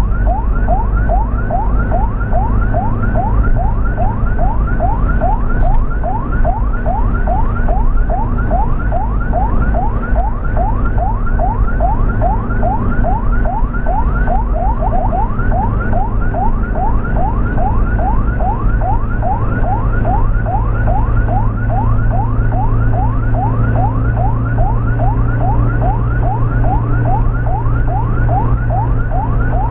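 Ambulance electronic siren in fast yelp mode, a rising whoop repeated about three times a second without a break, over the steady low rumble of a vehicle engine and road noise.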